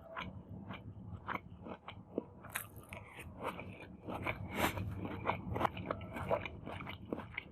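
Close-miked eating: chewing and biting with many short, crisp crunching clicks, coming thickest and loudest in the second half.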